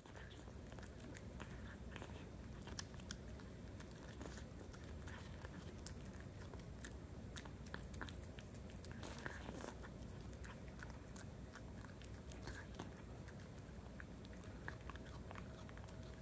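Cat chewing a sardine off a plate: irregular small clicks and crunches, several a second, over a steady low background noise.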